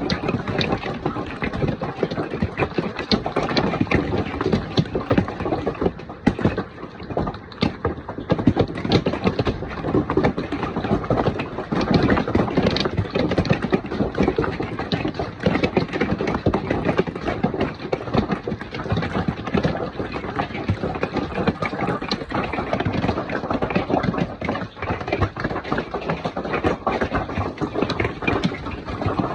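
Golf-ball-size hail pounding down, a loud, dense, irregular clatter of countless impacts that eases slightly for a moment before picking up again.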